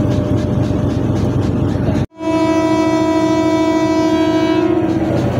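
Diesel locomotive's horn sounding one long blast of about three seconds, a chord of several tones, over the steady rumble of the idling train. The sound drops out for an instant just before the horn.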